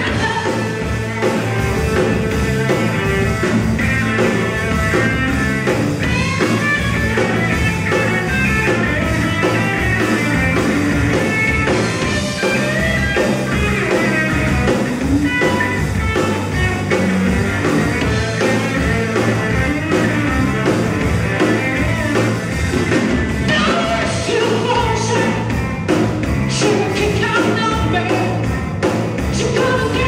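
Live rock band playing: electric guitar, electric bass and drum kit behind a woman singing lead, with a steady beat.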